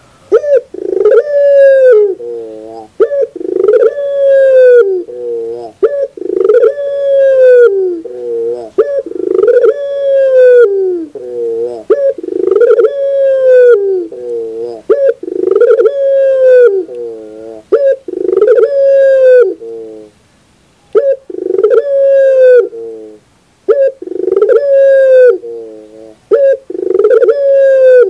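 Barbary dove (ringneck dove, the Indonesian puter) cooing loudly and close: a rolling coo repeated about ten times, roughly every three seconds, each a short note followed by a longer one that rises and falls in pitch.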